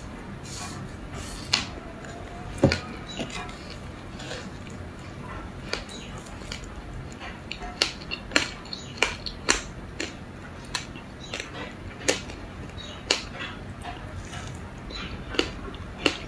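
Ice being bitten and crunched in the mouth: a string of sharp, irregular cracks and crunches, a few of them louder than the rest.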